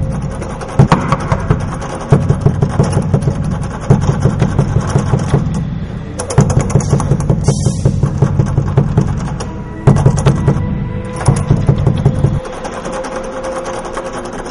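Background film music with a fast, pulsing beat; the bass drops out about two seconds before the end.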